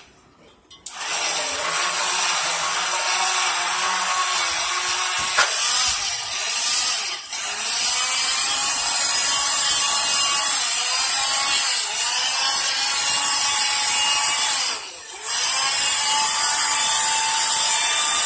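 Electric stick blender running in a glass bowl of flan batter. It whirs steadily, starting about a second in, and briefly stops twice, about 7 and 15 seconds in.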